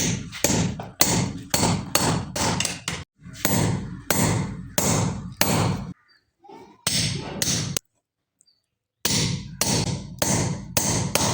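Hammer blows on steel from a bearing being shaped into a blacksmith tool: sharp, evenly paced strikes about two to three a second, in runs broken by short pauses.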